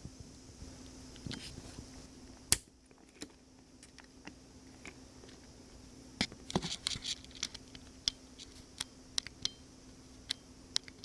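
Sharp plastic clicks and taps of toy train cars and track pieces being handled, with one loud click about two and a half seconds in and a quick run of clicks near the middle, over a faint steady hum.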